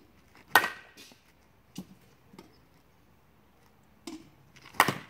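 Softball bat striking tossed softballs twice, a sharp crack with a brief ring about half a second in and another near the end, with a few fainter knocks between.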